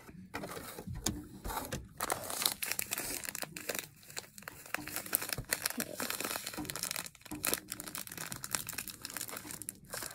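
Crinkling and rustling of a small clear plastic packet being handled and picked at with the fingers, an irregular run of crackles and small sharp ticks.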